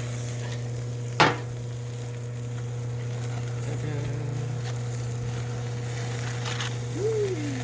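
Salmon fillet sizzling on a hot grill, a steady hiss over a low hum, with one sharp knock about a second in.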